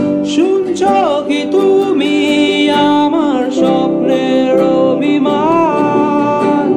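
A Bengali song: a voice singing over acoustic guitar.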